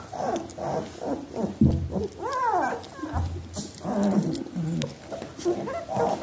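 A litter of young Australian Shepherd puppies whining and squealing, many short rising-and-falling calls overlapping. Two dull thumps come about a second and a half apart near the middle.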